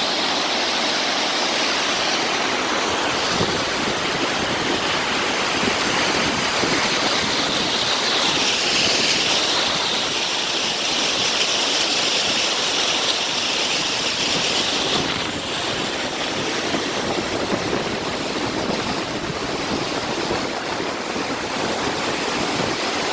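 Dunn's River Falls cascading: a steady rush of falling water.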